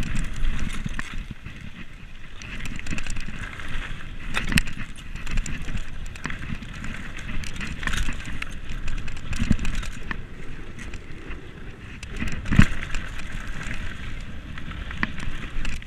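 Commencal Meta SX2 mountain bike ridden fast down a dirt and gravel track: tyres rolling and crunching over the loose surface, with the bike rattling and sharp knocks from bumps, the loudest about twelve and a half seconds in.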